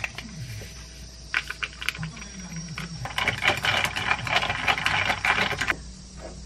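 Ice cubes clinking and rattling against a tall glass as kombucha powder is stirred into iced water with a stirrer: a dense run of quick clinks for about three seconds, starting about three seconds in. Before it, a few scattered light clicks and taps.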